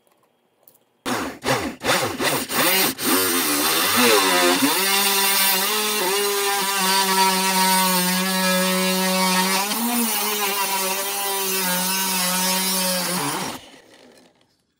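The small DC motor of a homemade mini drill press starts in a few short jerks, then spins up and runs with a steady whine as the bit drills into a wooden board. It switches off about a second before the end and winds down.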